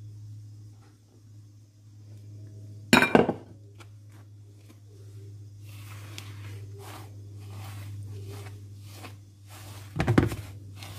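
A hand working soft, sticky cake dough into flour in a wooden bowl: soft repeated squishing strokes, about two a second in the second half, with two sharp knocks, one about three seconds in and one near the end. A low steady hum runs underneath.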